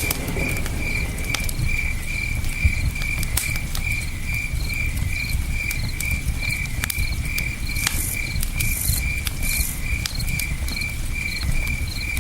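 Campfire crackling with scattered sharp pops over a steady low rush, while a cricket chirps evenly about three times a second.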